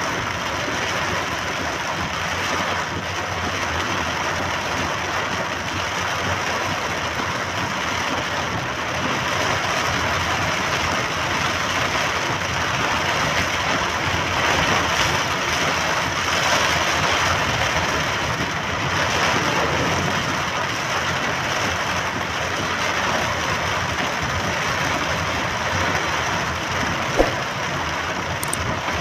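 Rain on a moving car's roof and windscreen, with tyre and engine noise, heard from inside the car as a steady hiss. A single sharp click near the end.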